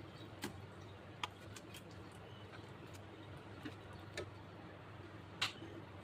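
Faint, scattered light clicks, about five of them, the sharpest near the end, over a low steady hum.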